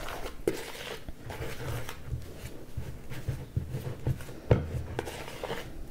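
Pastry ingredients (flour, butter, vinegar and milk) being stirred together in a mixing bowl: irregular scraping and rubbing with light knocks, one sharper clack about four and a half seconds in.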